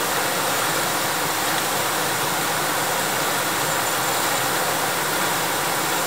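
Steady rush of a fast-flowing river running over shallow rapids.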